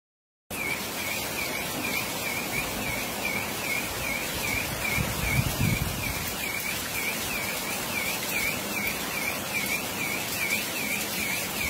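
Heavy rain falling steadily, with a high chirp repeating evenly about three times a second over it and a brief low rumble near the middle.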